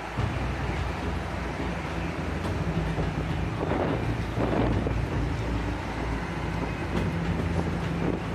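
A steady low engine-like hum over a rushing noise.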